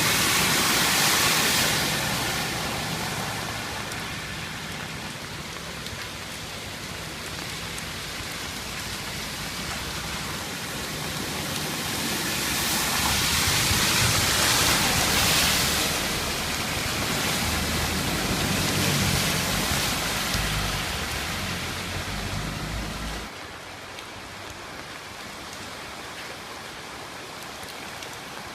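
Heavy rain pouring down, a steady rushing noise that swells and eases. A low rumble underneath cuts off abruptly near the end.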